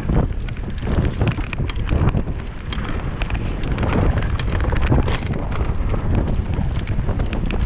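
Downhill mountain bike on rough ground: heavy wind buffeting on the microphone, with frequent clattering knocks and rattles from the bike.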